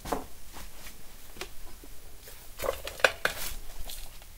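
Footsteps on hard, loose ground: a string of irregular clicks and scuffs, the sharpest about three seconds in.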